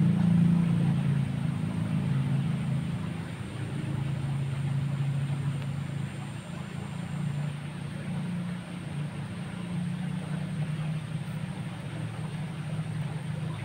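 A steady low engine drone, a little louder at first, over an even rushing hiss.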